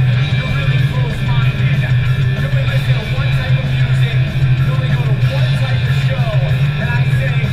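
Guitar-based music playing steadily.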